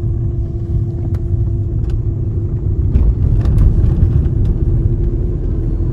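Car driving on a road, heard from inside the cabin: a steady low rumble of engine and tyres with a steady hum, and a few faint clicks.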